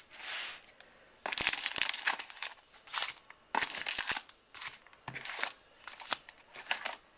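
Card packaging crinkling and rustling in a series of short, irregular bursts as trading cards are handled.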